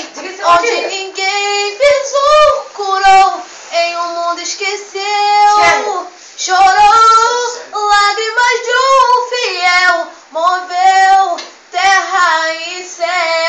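A girl singing solo without accompaniment, in phrases of held and bending notes with short breaks between them.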